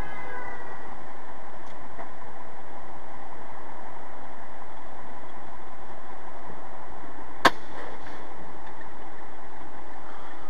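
Steady road and engine noise inside a semi truck's cab at highway speed, with a single sharp click about seven seconds in.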